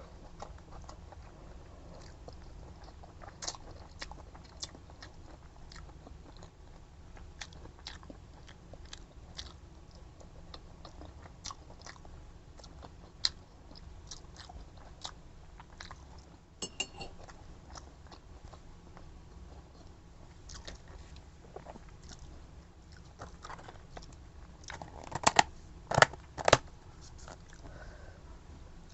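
A person eating chicken Bicol Express up close: chewing and mouth sounds with many small clicks scattered throughout. A short ring comes about two-thirds of the way through, and a few much louder sharp clicks come near the end.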